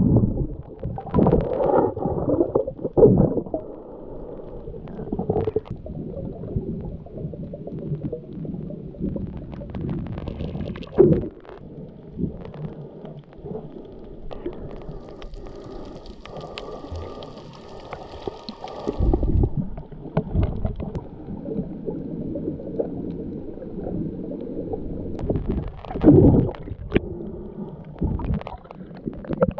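Muffled underwater water noise from a camera held beneath the surface while snorkelling: a low sloshing, gurgling rumble with irregular louder surges. A fainter steady higher hum comes in for a few seconds in the middle.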